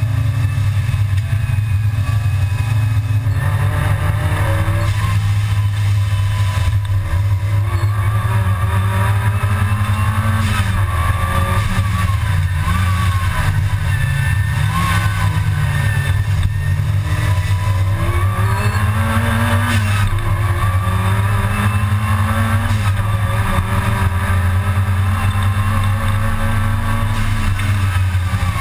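Supercharged Mk II Volkswagen Golf GTI's G60 four-cylinder engine heard from inside the cabin under race driving, loud, its pitch repeatedly climbing and dropping as it is revved up and eased off, over a steady low drone.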